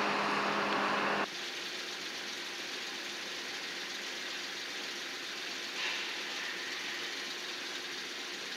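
A loud steady machine whir with a low hum cuts off suddenly about a second in. It gives way to the steady drone of an engine idling.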